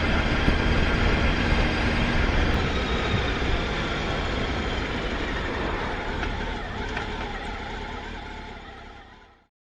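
Motorcycle riding on the road, its engine running under steady wind and road noise, fading out near the end.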